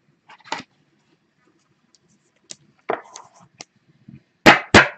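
A sleeved trading card being handled and slid into a rigid plastic toploader: faint rustles and small clicks of plastic, then a quick run of sharp plastic clacks near the end.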